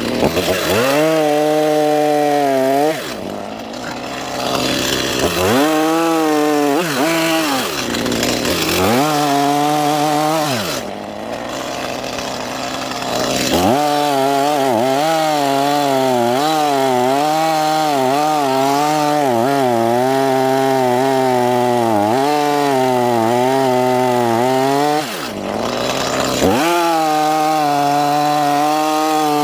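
Stihl chainsaw cutting wood. The engine is throttled up about five times, with its pitch wavering under load in the cut, and drops back to idle between cuts; the longest cut lasts about ten seconds.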